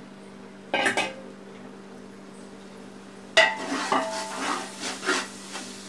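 A metal ladle clanks once against an aluminium pot, then from about three and a half seconds in scrapes and stirs beef pieces into thick masala, with the pot ringing a little under the strokes. A faint steady hum runs underneath.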